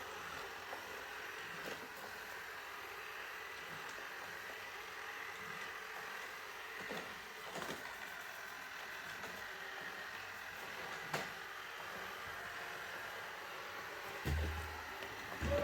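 Roomba robot vacuum running with a steady whirring hum, with a few sharp clicks and two low thumps near the end.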